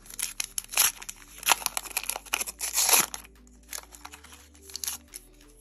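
Panini Adrenalyn XL foil booster pack torn open by hand: a dense run of sharp crackling tears and crinkles for about three seconds, then only a few quieter crinkles.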